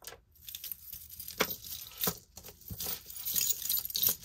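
Costume jewelry clinking and jangling as it is handled: beads and metal chains tapping together in scattered light clicks, with a run of high metallic jingling near the end as a beaded necklace is drawn out of a tangled pile.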